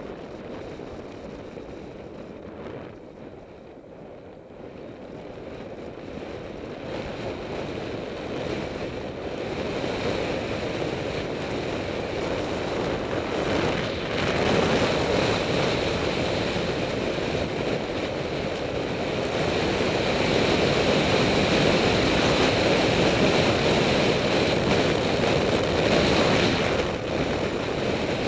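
Wind rushing over a bicycle-mounted camera's microphone on a fast downhill descent, mixed with tyre noise on the road. The rushing grows louder through the first half as the bike picks up speed, then stays loud.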